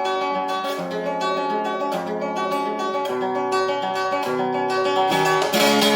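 Acoustic guitar played in a quick run of plucked notes and strums over held lower notes.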